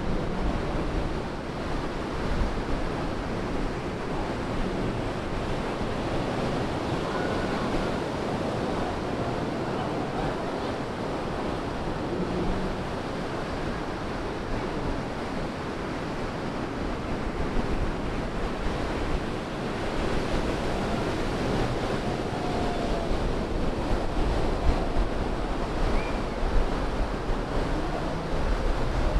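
Ocean surf breaking and washing up the sand around the pier pilings: a steady rushing wash, with a low wind rumble on the microphone.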